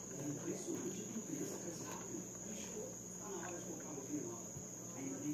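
Cricket with a steady high-pitched trill that does not break, over soft chewing and spoon sounds from someone eating.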